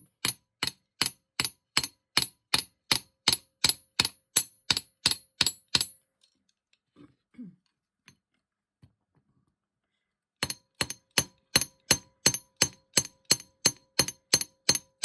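Hammer blows flattening the end of a 2 mm argentium silver wire into a paddle, evenly paced at about two a second, each with a bright metallic ring. The blows stop about six seconds in and start again about four seconds later.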